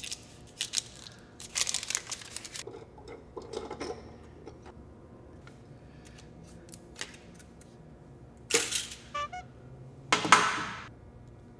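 Hands handling a small spool of MIG welding wire and the welder's plastic spool hub: scattered clicks and rattles with brief rustling and scraping, louder about two seconds in and twice near the end, the last the loudest.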